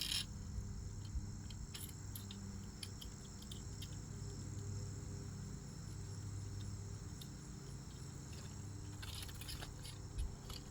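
Light clicks and taps of small bolt-on hardware being handled while fitting an e-bike headlight, scattered through with a cluster near the start and another near the end, over a steady high-pitched chirring of crickets and a low hum.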